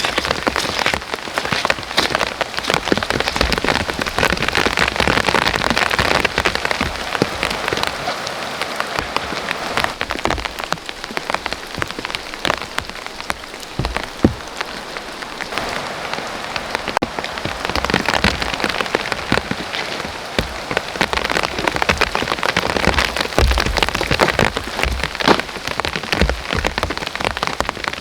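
Heavy rain falling steadily, with a constant dense patter of drops and many close, sharp taps of individual drops striking a surface.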